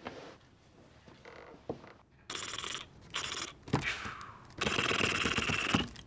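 Plastic being handled and crinkled in several loud bursts of crackling, rustling noise with small clicks in them, starting a little past two seconds in.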